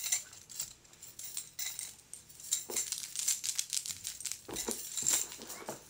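Scattered light clicks and rattles of small hard objects, with a few soft knocks.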